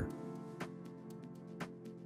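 Quiet background music: held chords with a light beat about once a second.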